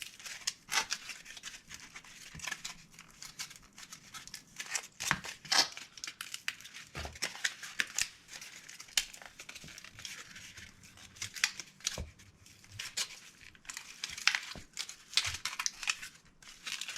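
Thin laser-cut cardboard crackling and crinkling as it is bent and creased into a curve by hand, with irregular sharp crackles and rustling handling.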